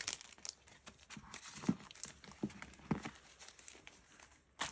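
Plastic packaging of craft stamp sets and paper packs rustling and crinkling as they are handled, with a few light taps and knocks as items are set down among the other packs.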